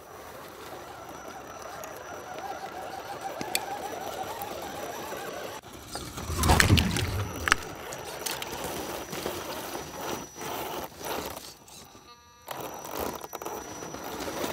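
Radio-control 4x4 crawler driving through a shallow, icy creek: the whine of its dual brushed electric motors, with water splashing and ice crackling under the tyres. A loud low thump with a falling whoosh comes about six seconds in.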